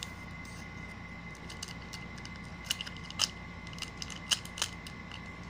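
Scattered small clicks and taps of hands handling something at close range, a few in the second half, over a faint steady electrical whine.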